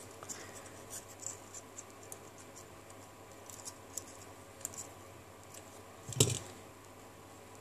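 Faint scratching and small clicks of fingers working at a flex-cable connector inside an opened smartphone's plastic frame, with one louder knock a little after six seconds in.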